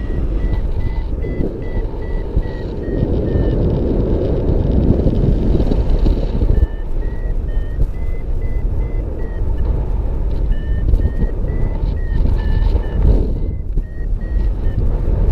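Paragliding variometer beeping in short tones, about three a second, its pitch stepping up and down a little, the climb tone that signals the glider is rising in lift. The beeps pause for a few seconds early on and start again. Under them is loud wind rumble on the microphone.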